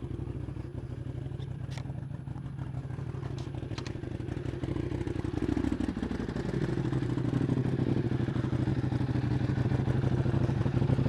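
2008 Buell 1125R's 1125 cc V-twin engine idling, a little like a tractor, getting louder about halfway through.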